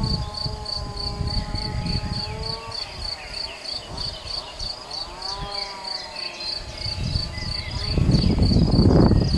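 Crickets chirping in a steady, even rhythm, about three chirps a second, over a droning hum that slowly rises and falls in pitch. A low rumble swells near the end and is the loudest sound.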